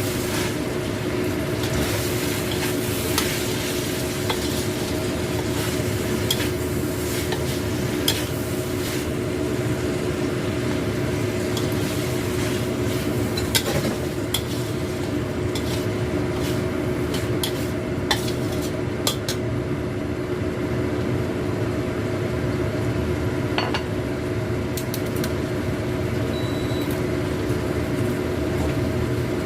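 Stir-fry of salted squid, tempeh and green chillies sizzling in a pan, a spatula scraping and clicking against the pan now and then, over a steady low hum.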